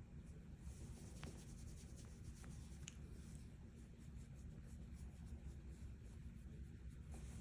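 Faint scratchy rubbing with a few light clicks over a low, steady rumble.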